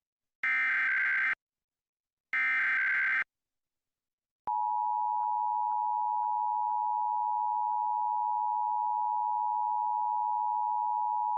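Emergency Alert System test: two short bursts of SAME header data, a harsh digital warble about a second apart. After a pause of about a second, the EAS attention signal starts about four and a half seconds in: a steady two-tone alarm at 853 and 960 Hz.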